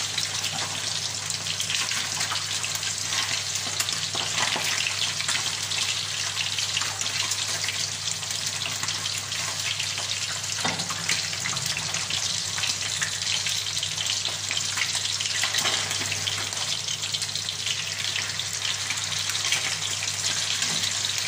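Salmon pieces sizzling and crackling steadily in hot oil in a frying pan, nearly done, with a few light clicks of metal tongs against the pan as pieces are turned and lifted out.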